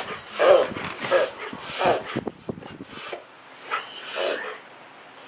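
A dog reverse sneezing: a run of sharp, noisy in-breaths through the nose. They come about one every 0.7 seconds at first, then in a quick flurry just after two seconds, then further apart and weaker near the end. The spasm sounds distressing, but it settles quickly and is not dangerous.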